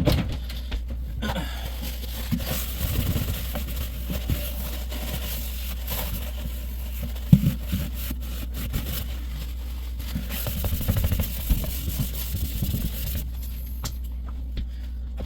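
Scattered clicks and scrapes from hands working at a kitchen sink drain, with one sharp knock about seven seconds in, over a steady low hum.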